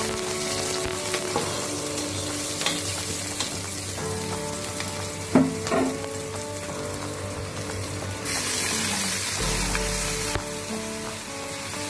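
Chopped onions and green peppers sizzling in hot oil in a pot while being stirred with a metal ladle. The ladle knocks and scrapes against the pot now and then, loudest about five and a half seconds in.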